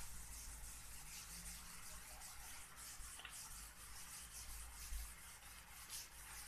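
Whiteboard eraser wiping across the board in repeated faint rubbing strokes, with a low hum under it.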